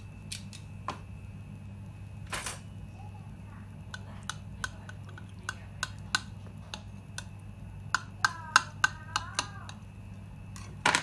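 Metal tongs and a kitchen knife clicking and tapping against a ceramic plate as braised chicken is handled and cut: a scattering of short sharp clicks, densest about eight to nine and a half seconds in, over a steady low hum.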